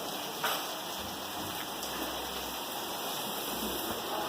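Steady rain falling, an even hiss, with one short knock about half a second in.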